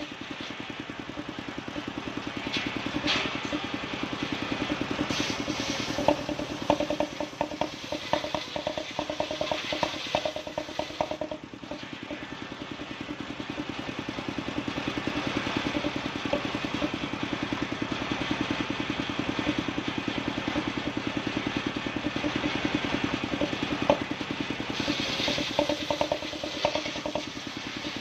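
An engine-driven circular saw bench runs steadily with a fast, even engine pulse. Its blade rips a bayur log lengthwise, with a louder cutting hiss in the first ten seconds or so and again near the end. Scattered knocks of wood against the bench are heard.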